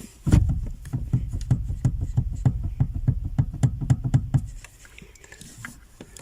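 Knocking from the VW Passat B3 steering column as it is rocked back and forth, a rapid run of knocks about six a second that stops about four and a half seconds in. The knocking comes from play in the lower steering-column bearing, whose inner race is not pressed by its spring.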